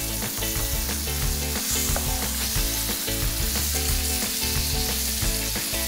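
Seasoned whiting fillets sizzling steadily in oil in a nonstick frying pan, with a spatula moving and turning them in the pan.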